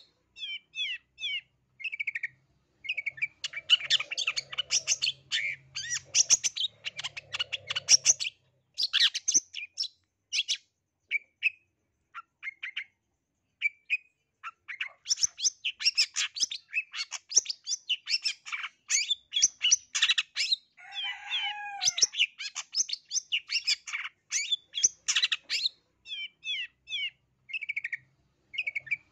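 Long-tailed shrike (cendet) singing a fast, chattering song of rapid high notes in dense runs, full of mimicked calls of other birds. The song thins to scattered single notes about a third of the way through, and there is a lower, falling call a little past the middle.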